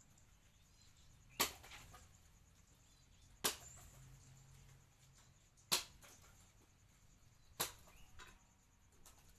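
Four sharp strikes about two seconds apart, each a single hard knock with a short ring after it.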